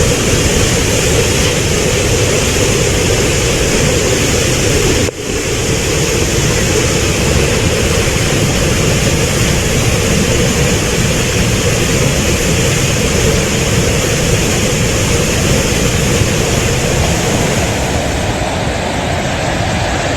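Loud, steady rush of flash-flood water, with a brief sharp break about five seconds in before the rushing resumes.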